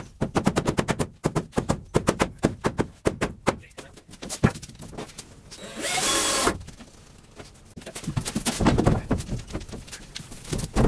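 Power drill driving screws into wooden 2x4 framing: runs of rapid rattling clicks, a short high whir about six seconds in, and more rattling near the end.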